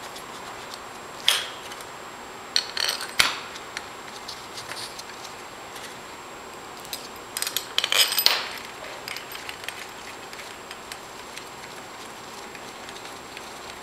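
Small metal clinks and taps as steel through bolts and their sealing washers are handled and fitted into the aluminium case of a Denso 10S A/C compressor on a steel workbench. They come in three short clusters, the loudest about eight seconds in.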